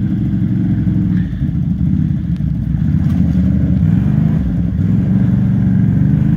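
Off-road vehicle engine running steadily at low revs, its pitch rising and falling a little as the throttle changes.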